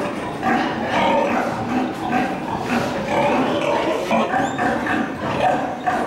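Many pigs squealing and grunting at once in a piggery shed, an unbroken din of overlapping calls.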